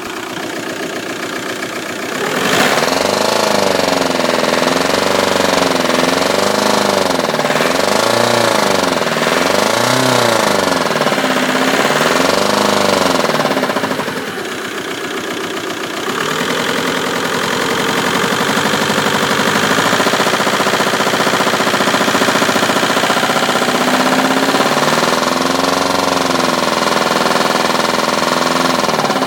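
VW Golf 1.9 TDI PD150 four-cylinder pump-injector diesel engine (ARL) running and revving up and down repeatedly, about five swells in quick succession in the first half, then steadier running with one more rise near the end. Under acceleration it has an awful knocking noise, which the owner notices only once the engine has run about five minutes.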